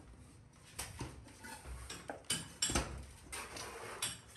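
Fabric rustling and brushing right at the microphone, mixed with a few light clicks and knocks of handling.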